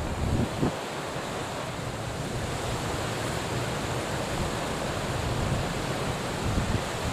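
Wind buffeting the camera microphone over a steady rushing of sea and wind, with stronger low gusts about half a second in and again near the end.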